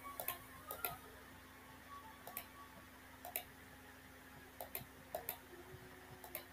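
Computer mouse button clicks, faint and scattered, several coming in quick press-and-release pairs, as beams are drawn node to node in drafting software.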